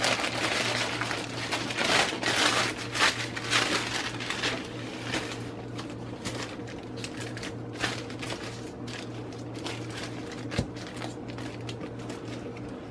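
Plastic sheet crinkling and rustling as hands fold and press crumbly cornstarch dough inside it, busiest in the first few seconds and then softer. A steady low hum runs underneath.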